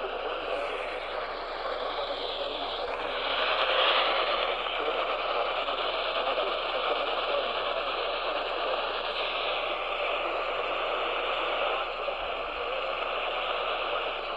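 AM radio static: a steady hiss and crackle from a weakly received AM broadcast signal, with a brief falling whistle about two to three seconds in.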